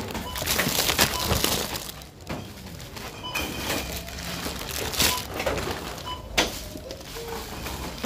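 Supermarket checkout ambience: a few brief barcode-scanner beeps scattered over the clatter and rustle of goods and bags being handled at the tills.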